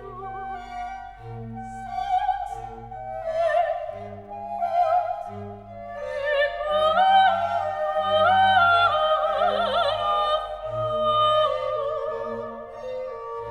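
Background music: a classical piece with an operatic voice singing with vibrato over a sustained instrumental accompaniment.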